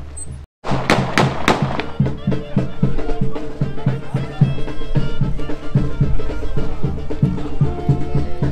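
Mexican brass band music with a steady drum beat and held horn notes, played loud. It opens with four quick sharp bangs about a second in.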